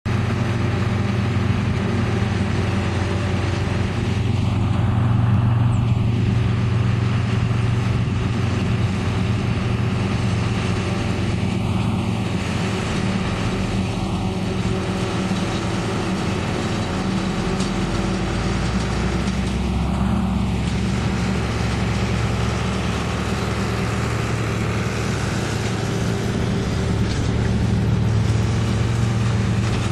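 Tractor diesel engine and forage harvester running steadily together while chopping corn: a constant low engine drone over an even rushing noise.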